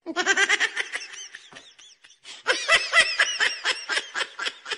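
High-pitched laughter in quick, repeated ha-ha pulses. It comes in two bouts, with a short break about two seconds in.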